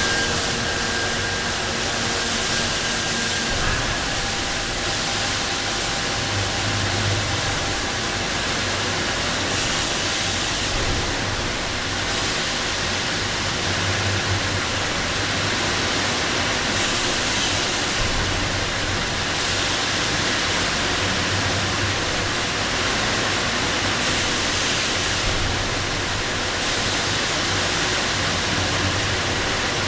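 Industrial shelf and trolley washing machine running, its nozzles spraying pressurised water in a steady rushing hiss with a low hum underneath.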